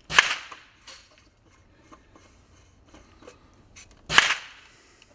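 Two sharp, loud rifle shots about four seconds apart, each with a short ringing tail, from rifles fired on the range. Faint clicks of a rifle being handled come in between.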